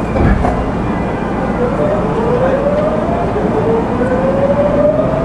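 Tokyu 9000 series electric train accelerating from a stop, heard from inside the car: the GTO VVVF inverter whine rises steadily in pitch over the rumble of the running gear. A single knock sounds just after the start.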